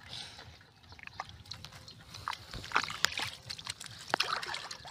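Hands squelching and scooping through wet mud and grass at the edge of a muddy pool, making irregular wet slaps and sharp clicks that come more often in the second half.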